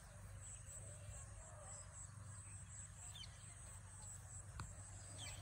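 Quiet rural ambience: a high insect trill pulsing on and off over a low steady hum, with a few faint bird chirps and one faint click about four and a half seconds in.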